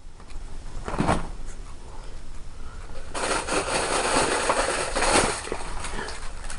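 Handling noises: a single knock about a second in, then a couple of seconds of rustling and clatter.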